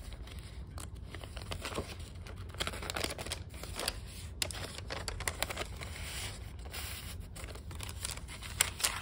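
Paper pages, a small paper sack and a card of a handmade junk journal being handled and turned, rustling and crinkling unevenly, with one sharp click near the end.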